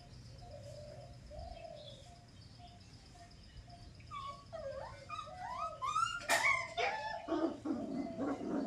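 Several German shepherd puppies whining and yelping. Faint at first, the cries grow louder and overlap from about four seconds in, with a sharp click about six seconds in.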